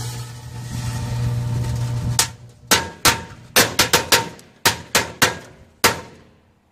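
A microwave oven hums steadily, then firecrackers inside it go off in about a dozen sharp, irregular bangs over roughly four seconds, muffled by the oven's box. The hum stops as the bangs begin.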